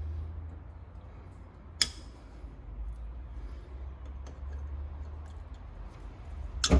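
Two sharp metallic clicks, one about two seconds in and a louder one near the end, as brake caliper parts are handled during a front brake pad change, over a low steady rumble.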